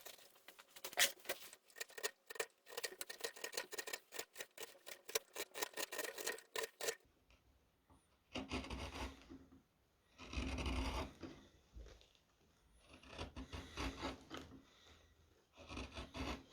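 Round carving gouges cutting into a wooden spoon. First comes a quick run of short crisp cuts for about seven seconds, then four slower shaving strokes about a second each, with pauses between.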